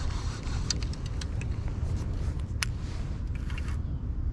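Wind rumbling on the microphone, with scattered sharp clicks from a baitcasting reel being handled, the sharpest about two and a half seconds in.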